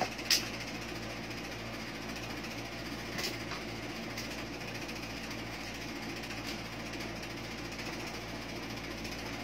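Steady mechanical hum of a running electric fan. A sharp click comes about half a second in and a fainter one about three seconds in.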